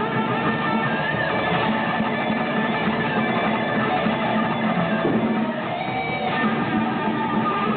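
A band playing a song live, led by strummed electric guitar.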